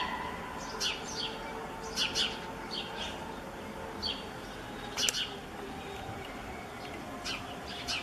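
House sparrow chirping: short, sharp chirps, singly or in quick pairs, about one a second at irregular intervals.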